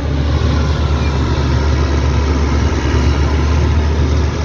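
Caterpillar motor grader's diesel engine running steadily as the machine moves along grading soil.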